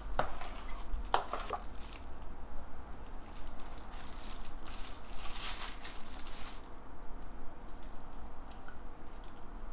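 A gloved hand stirs a thin soy-sauce marinade in a large plastic bowl: liquid sloshing and a plastic glove crinkling. There are a few sharp clicks in the first two seconds and a louder stretch of rustling noise around the middle.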